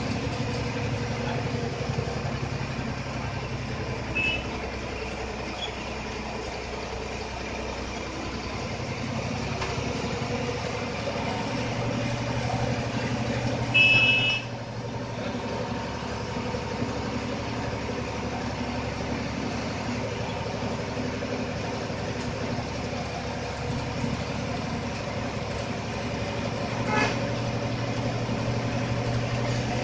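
APSRTC bus diesel engine running, heard from inside the cabin, its low note shifting a couple of times. About halfway there is one short horn blast.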